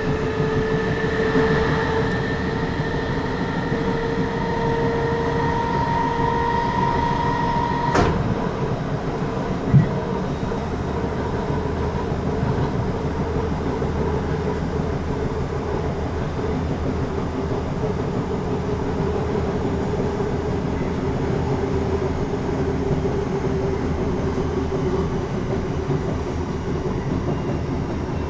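Class 455 electric multiple unit heard from inside a carriage while running: a steady rumble of wheels on rail, with a whine of several steady notes from the traction motors. The higher notes of the whine stop with a sharp click about eight seconds in, and a single thump follows about two seconds later.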